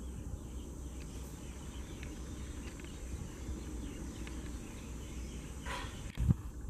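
Outdoor ambience: a steady low rumble with faint scattered ticks. Near the end there is a short harsh call, then a low thump.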